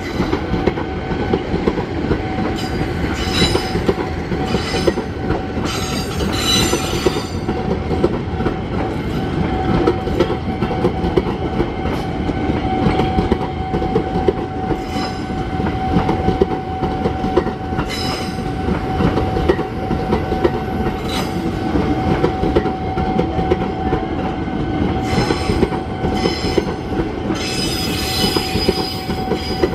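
A former JR 205-series electric commuter train passing close by: the steady rumble and clatter of its wheels on the rails, under a steady whine. Several brief high-pitched wheel squeals come through as the cars go by.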